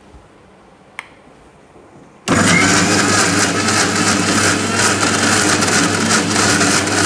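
Electric kitchen mixer grinder starting abruptly a little over two seconds in and running steadily at full speed, blending boiled potato, garlic and curd into garlic paste. A single click about a second in comes before it.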